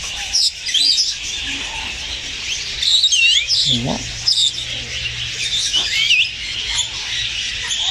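Aviary birds chirping and calling: many short, quick whistled notes, several sliding up and down, overlapping throughout.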